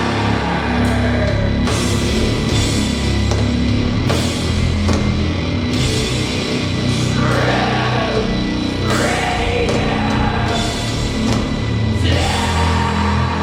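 Doom metal band playing live: loud distorted guitars and bass over drums, with harsh vocals coming in a couple of times.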